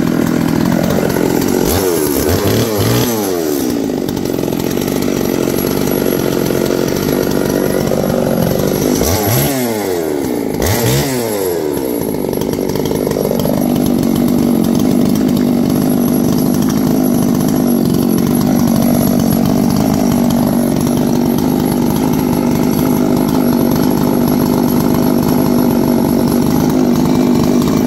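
High-compression 660-class two-stroke chainsaw, built from Proline aftermarket parts, running. Its pitch rises and falls around two seconds in and again around ten seconds in, then it runs steadily.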